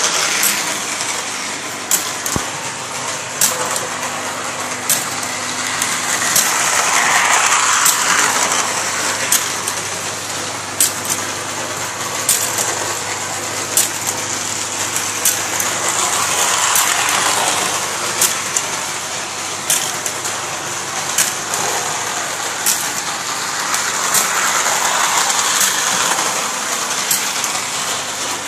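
Lionel toy train running on its track loop: a steady electric-motor and wheel whir with sharp clicks about every second and a half. It grows louder and fades three times, about every nine seconds, as the train comes round the loop.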